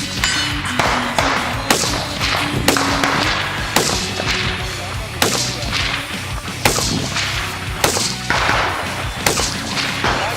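A string of AR-15 rifle shots in .223, about ten at uneven intervals of roughly a second, each with an echoing tail. Background music plays under them.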